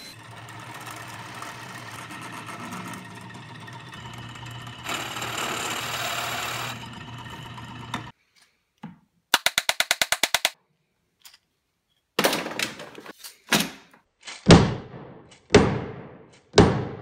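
Table saw running and cutting a small wooden block, the cut louder about five seconds in, then the saw stops. After a quick run of clicks, a wooden mallet knocks five times, driving a threaded insert into the block.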